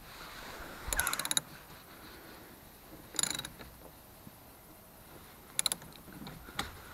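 Short bursts of rapid metallic clicking, three times, then a single sharp click near the end, from hands-on work under the open hood of a Jeep TJ.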